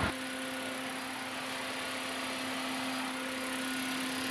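Toyota hybrid car running after being started, a steady even hum.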